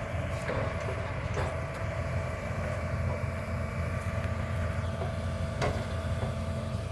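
Hitachi excavator's diesel engine running steadily, a deep rumble with a steady whine over it, as its demolition grapple works over scrapped steel antenna tubes. A few faint knocks come through, one about half a second in and one near the end.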